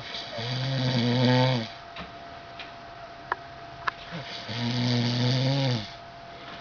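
A sleeping man snoring: two long, loud snores, each about a second and a half, some four seconds apart. Two short clicks fall between them.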